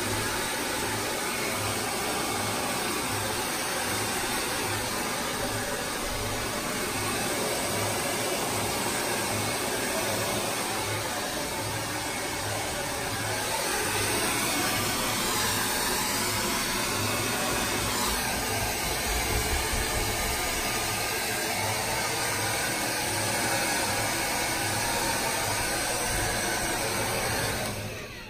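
DryBar Buttercup hair dryer running, a steady rushing blow of fan and airflow, switching off just before the end.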